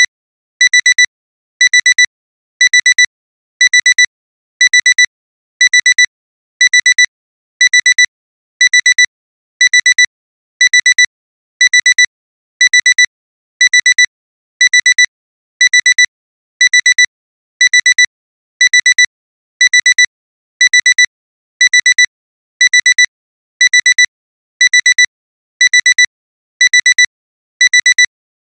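Digital alarm clock alarm beeping: a high electronic beep in quick sets of four, one set about every second, repeating without a break. It is the signal that the timer has run out.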